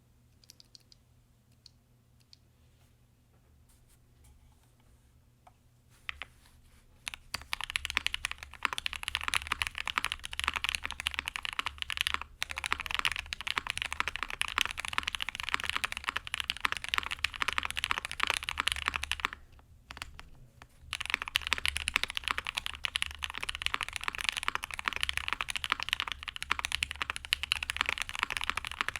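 Fast typing on a custom mechanical keyboard, an ai03 Vega with Gateron Black Ink linear switches on a POM plate. It is near quiet with a few faint clicks for the first several seconds, then comes a dense run of keystrokes that pauses briefly about two-thirds of the way through and then resumes.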